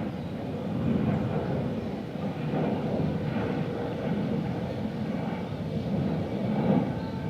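City park ambience dominated by a steady, gently wavering low rumble of distant urban noise, with a faint steady hum.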